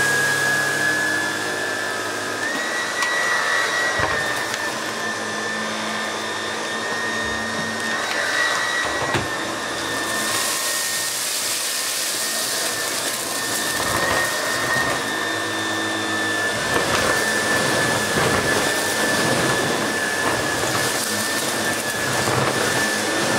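Miele Revolution 500 S556 cylinder vacuum cleaner running with its electric powerhead, a steady high motor whine over rushing air, as porridge oats are sucked up off the carpet.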